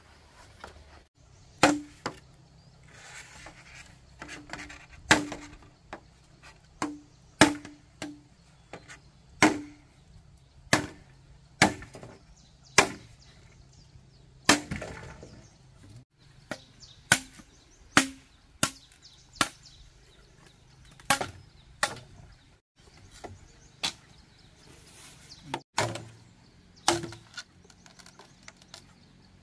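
Green bamboo pole being chopped with a machete: sharp strikes, irregularly spaced about a second apart, each with a brief ring.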